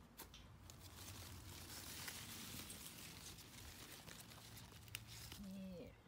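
Soft rustling and crinkling of strawberry plant leaves being brushed and handled close to the microphone while strawberries are picked, with scattered small clicks. The rustle builds about a second in and stops just before the end, where a brief hum of a voice is heard.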